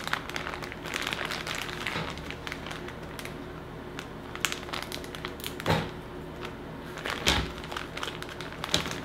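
Plastic zip-top freezer bags full of cut okra crinkling and crackling as they are pressed, zipped shut and handled, with a couple of louder knocks about six and seven seconds in.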